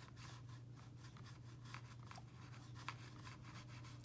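Faint, irregular scratchy ticks of a paintbrush working paint on watercolour paper, over a steady low hum.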